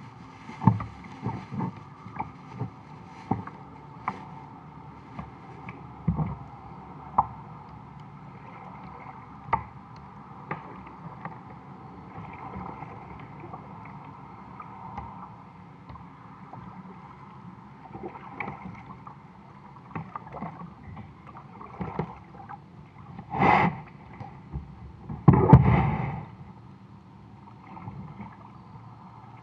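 Plastic kayak under way on a river: water lapping at the hull, with irregular knocks and taps carried through the hull. Two louder, longer splashing bursts come a few seconds before the end.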